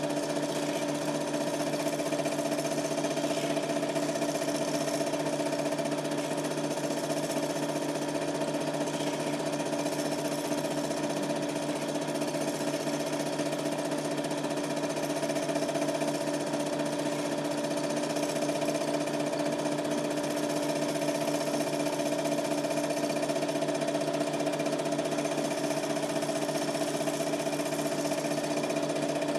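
Super 8 film projector running, a steady mechanical whirr with a constant hum, picked up by a camcorder microphone in the room.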